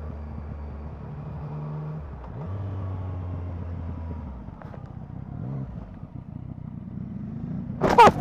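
Yamaha MT-09 SP's three-cylinder engine running under way, the revs dropping about halfway through and then picking up again. Near the end there is a sudden loud burst of sound as the motorcycle crashes.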